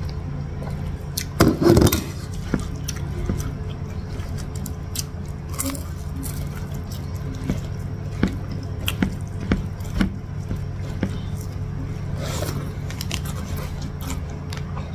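Close-miked eating sounds: wet clicks and squishes of chewing, and fingers mixing and scooping rice on a plate, over a steady low hum. A louder clatter comes about one and a half seconds in.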